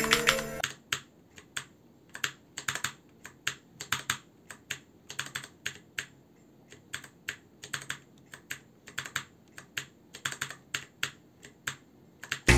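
Typing on an Altec Lansing ALG K8614 mechanical keyboard with clicky blue switches: irregular sharp key clicks, sometimes in quick runs. A snatch of music stops within the first second.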